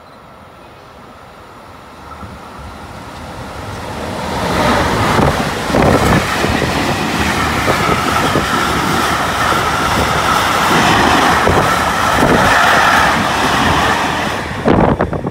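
Freight train of covered wagons passing close by at speed. It draws near over the first few seconds, then runs as a loud, steady rumble of wheels with repeated knocks over the rail joints. The sound drops off sharply near the end as the last wagon goes by.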